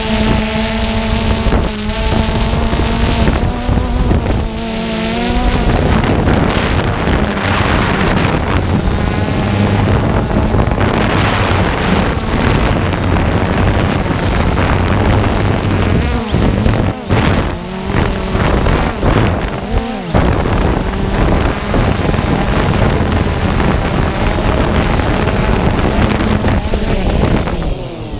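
DJI Phantom 2 quadcopter's motors and propellers whirring, heard from the camera on board, with wind rushing over the microphone. The steady hum of the first few seconds turns rougher and noisier about six seconds in.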